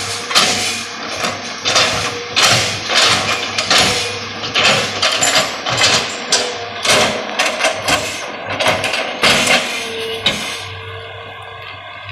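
Background music with a steady beat of about two strikes a second, fading out near the end.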